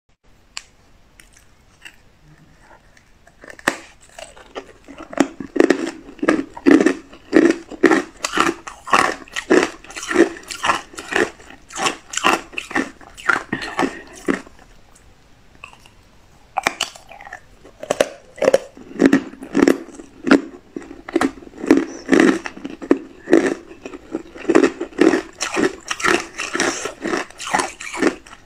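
Hard ice blocks coated in matcha powder being bitten and chewed: sharp, loud crunches about two a second, starting about four seconds in, in two long runs broken by a short pause in the middle.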